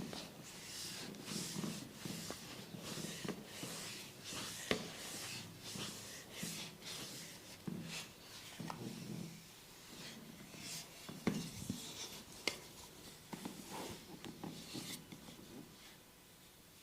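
Hands rubbing and kneading skin in a massage, a run of repeated rubbing strokes, with a couple of sharp clicks among them.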